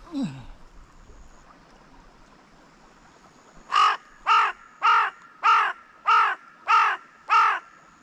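Carrion crow giving seven loud, harsh caws in quick succession, nearly two a second, starting about halfway in.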